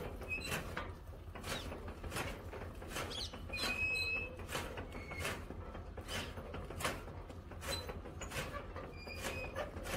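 Flywheel chaff cutter chopping green fodder: a sharp cutting stroke about every 0.7 seconds as the blades turn, with the machine creaking.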